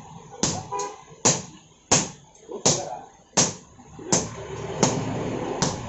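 Two sledgehammers striking hot iron on an anvil in turn while a blade is forged by hand. A sharp metallic blow lands about every three-quarters of a second, eight blows in all.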